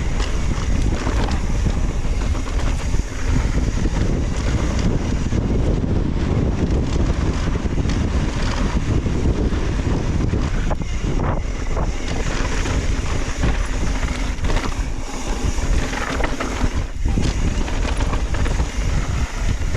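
Strong wind buffeting the microphone of a mountain biker's camera during a fast downhill ride, a loud, steady rumble, with a few brief knocks from the bike over the trail.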